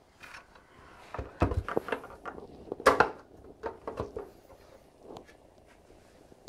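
Plastic clicks and knocks from a point-of-sale register's housing being handled, with its back cover pressed into place and the unit turned on a table. There are a few dull thuds about a second and a half in, a sharp click near three seconds, then several lighter clicks.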